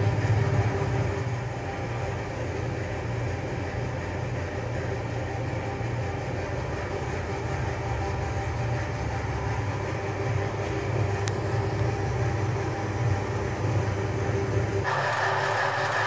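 Honey-extraction machinery running with a steady low hum and rumble. Near the end the sound cuts abruptly to a brighter, steady hiss with less low end.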